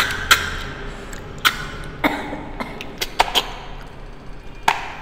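People sucking cooked snails out of their shells: a series of short, sharp slurps and clicks, about eight in all, the loudest at the very start.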